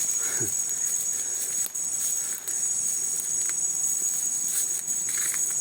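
Insects singing in a steady, high-pitched chorus, with a few faint clicks beneath.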